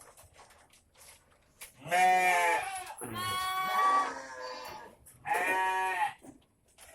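Goats bleating: three loud wavering bleats, the middle one the longest. The goats are calling to be fed ahead of their evening feeding.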